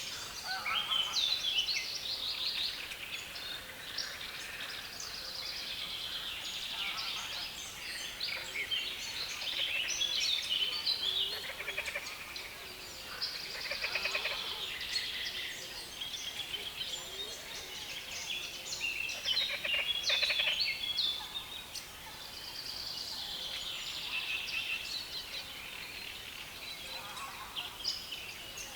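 Dense chorus of songbirds singing from a reed bed, several at once, with fast chattering, trilled notes and louder bursts every few seconds.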